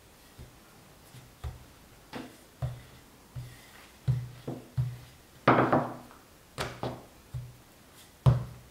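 Wooden rolling pin knocking and rolling on a wooden pastry board as dough is rolled out into a thin round flatbread: a run of dull, irregular thuds, about one or two a second.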